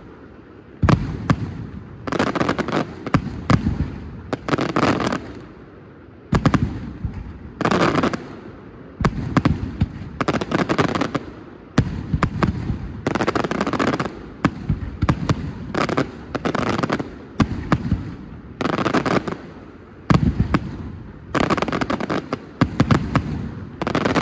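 Fireworks display: shells bursting in quick succession, clusters of sharp bangs every second or two with crackling and a low rumbling echo between them.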